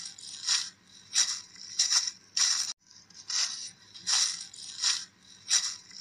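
A small broom sweeping a cement floor in short strokes, about nine swishes spaced roughly evenly.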